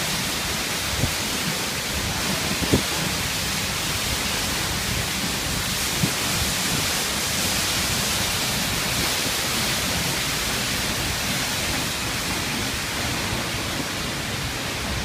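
Waterfall rushing: a steady, dense roar of falling water and spray. A few short low thumps come in the first few seconds.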